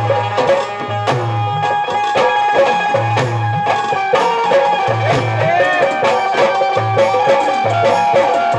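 Live Haryanvi ragni folk music: an electronic keyboard plays held melody notes over a steady beat on a large barrel drum.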